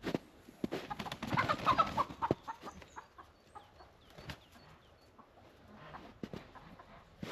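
Chickens clucking, with a loud flurry of rapid clucks and squawks about a second in that dies down to scattered calls. Short knocks are heard throughout.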